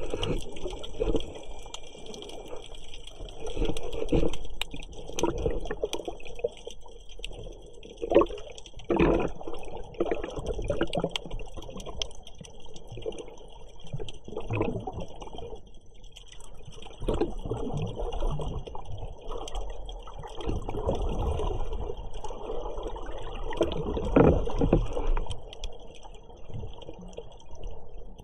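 Water recorded underwater: muffled, irregular swishing surges with scattered small clicks and knocks.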